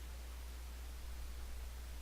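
Room tone: a steady low hum under faint even hiss.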